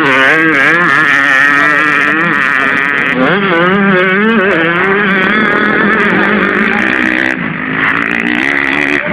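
Motocross dirt bike engines revving up and down as the bikes ride the track, the pitch rising and falling with the throttle. Two engines overlap about three to five seconds in.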